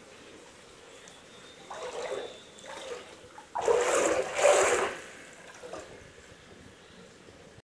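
Floodwater splashing and sloshing in a few bursts, the loudest starting about three and a half seconds in and lasting over a second.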